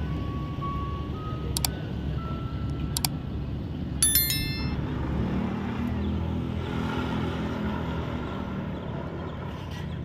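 Outdoor parking-lot ambience with a low rumble, and a vehicle engine running nearby in the second half. Early on, short clicks and a bright bell-like ding from an animated subscribe-button sound effect.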